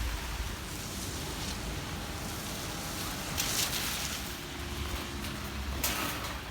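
Outdoor ambience in stormy weather: wind rumbling on the microphone over a steady rushing hiss, with two brief louder hissing gusts, one midway and one near the end.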